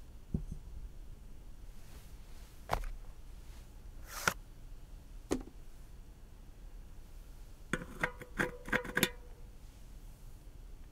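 Metal disc brake rotor handled and fitted onto a center lock hub: a few scattered taps, then about eight seconds in a quick run of metallic clinks with a brief ring as the rotor slides onto the hub.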